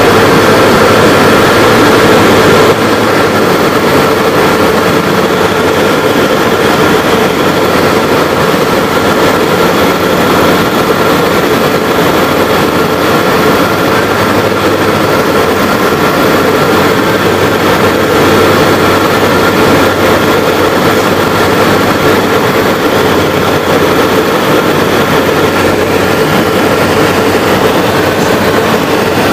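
Light aircraft's piston engine and propeller droning steadily, heard inside the cabin, with a steady hum over the noise. The level drops a little about three seconds in, then holds.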